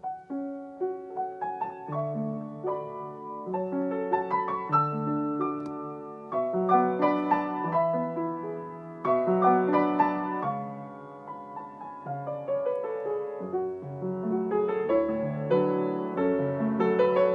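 Solo piano playing flowing broken chords in a continuous phrase. It swells louder about halfway through, and deeper bass notes come in about fourteen seconds in.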